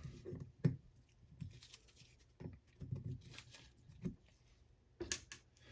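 Faint, scattered clicks and light scrapes of small metal parts being handled as the cotter pin (firing pin retaining pin) is worked out of an AR-15 bolt carrier group by hand.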